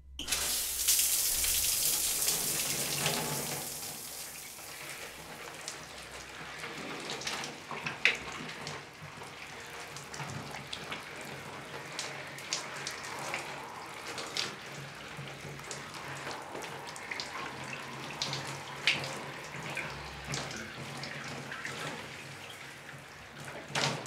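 Shower water running and splashing on a person washing under it, starting suddenly, louder for the first few seconds, then a steadier, quieter spray with small scattered splashes.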